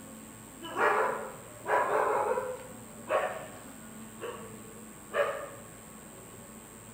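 A dog barking five times at uneven intervals, the second bark longer and rougher than the rest.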